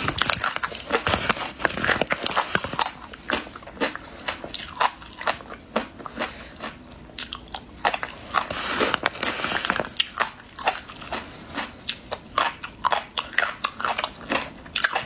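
Close-up crunchy chewing and biting of a spicy snack: many sharp crunches at an uneven pace.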